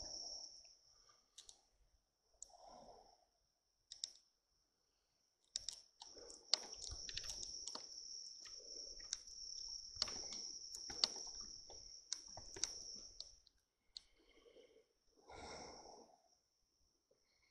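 Faint, steady high-pitched chirring of night insects, with irregular sharp clicks and soft footsteps through brush and over boards.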